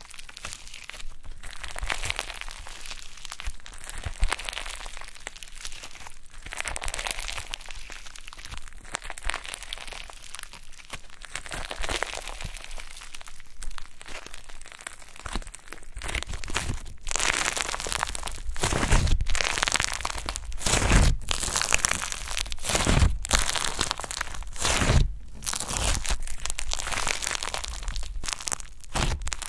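Yellow foam-ball slime (floam) being stretched, folded and squeezed by hand, with crackling and crunching of the foam beads. In the second half it gets louder, with a heavy squishing press about every two seconds.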